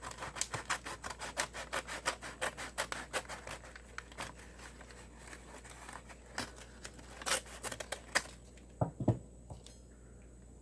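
A mailed package being cut or scraped open by hand: a fast run of short scraping strokes, about five or six a second, for roughly four seconds, then a few scattered knocks and rustles as it is handled.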